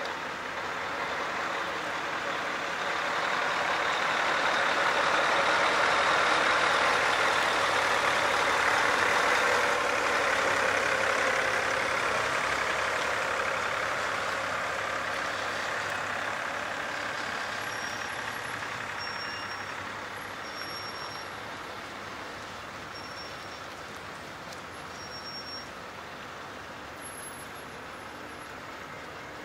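Heavy truck hauling an oversize load on a multi-axle low-loader trailer drives past: engine and tyre noise build to a peak about a third of the way in, then fade steadily as it moves away.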